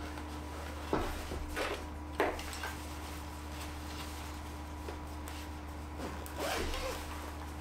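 Black fabric film changing bag rustling and rubbing as hands move inside it, a few short rustles in the first seconds and a longer one near the end.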